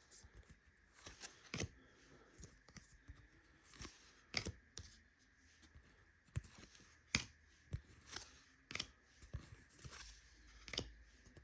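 Basketball trading cards being handled and flipped through: faint, irregular clicks and flicks as the cards slide and tap against each other.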